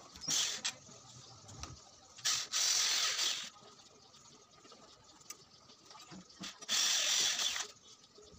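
Electric drill run in three short bursts, driving screws to fix metal hairpin legs to a wooden slab tabletop.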